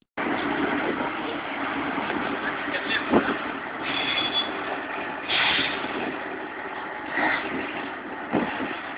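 Aveling-Barford RD040 dump truck running: a steady, dense mechanical noise with a few sharp knocks, the loudest about three seconds in.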